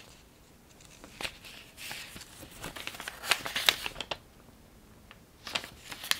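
Paper rustling with light clicks and taps, in bursts from about a second in and again briefly near the end: cards and paper being handled on a table.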